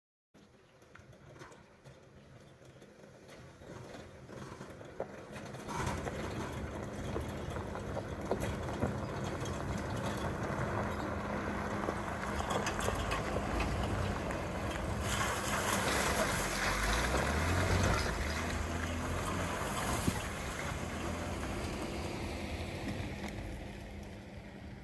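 A Jeep Wrangler driving on a gravel road: engine and tyre noise on gravel, building from about six seconds in, with the engine pitch rising and falling around its loudest point near eighteen seconds as it passes. A faint water-like hiss, such as a creek, comes first.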